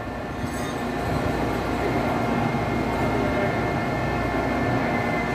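Metal lathe running steadily while threading a pipe: an even mechanical hum with a few fixed tones.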